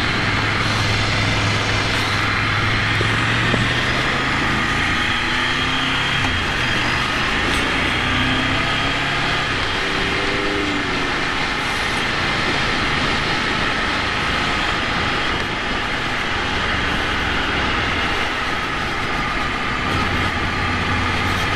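Ducati Monster 797's L-twin engine running under way, with heavy wind noise over it. The engine note holds steady, shifts in pitch through the middle as the revs change, and settles again near the end.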